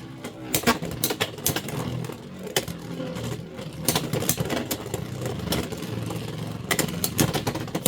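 Beyblade X spinning tops whirring in a plastic stadium, colliding again and again with sharp clacks over a steady spinning hum.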